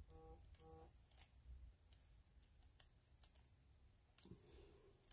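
Near silence with a few faint, light clicks and rustles of paper being handled as a die-cut paper plant piece is pressed and tucked into place.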